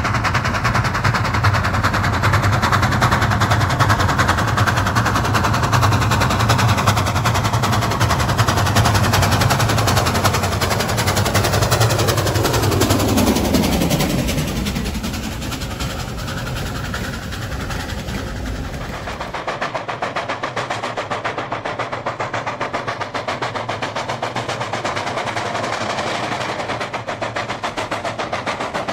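Steam locomotive working hard, its exhaust beating in rapid chuffs from the chimney. About 12 to 15 seconds in it passes close and the pitch falls away; after a cut at about 19 seconds another steam locomotive is heard chuffing rapidly, with less low rumble.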